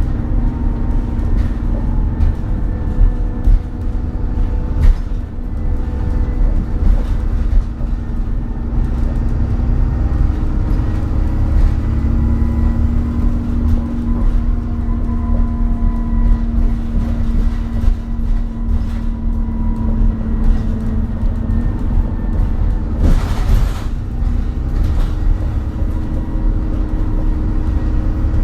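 Alexander Dennis Trident double-decker bus heard from inside while on the move: a steady low drivetrain rumble under a droning whine from the engine cooling fan running flat out, the vacuum-cleaner-like "Hoover mode" sound. A brief hiss comes about three-quarters of the way through.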